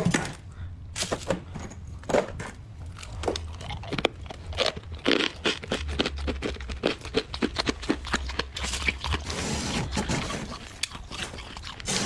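Metal scraper crunching and scraping through thick, snow-like frost build-up in a freezer, in a quick series of short sharp strokes, with some plastic sheeting crinkling among them.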